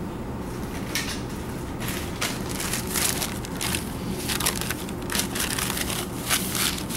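A brown paper towel crinkling and rustling in irregular crackles as gloved hands unfold and smooth it out, starting about a second in, over a steady low hum.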